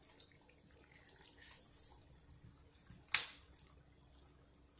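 Spatula gently stirring koftas and potato chunks in a pan of curry, a faint soft scraping and squelching, with a sharp knock about three seconds in and a smaller one just after.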